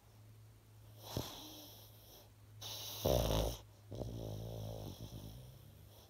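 Old pug snoring in its sleep: a short snort about a second in, a loud snore about three seconds in, then a buzzing, fluttering snore that fades out on the next breath.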